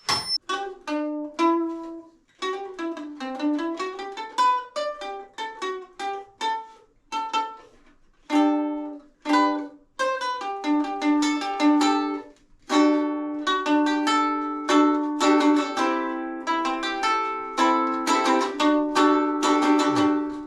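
Homemade redwood ukulele being played: a run of picked single notes and chords that ring on, turning into fuller, denser chords in the second half.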